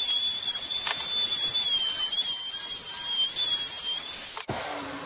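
Hand-held electric router with a bevel bit running at full speed and cutting a chamfer along the edge of a wooden board: a loud, high-pitched whine that wavers slightly in pitch as the bit bites into the wood. It stops abruptly near the end.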